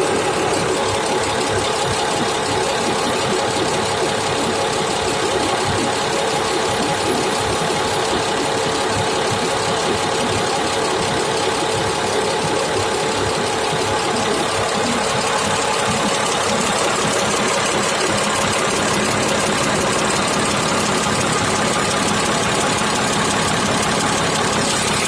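Diesel engine running at a steady idle with a fast, even clatter.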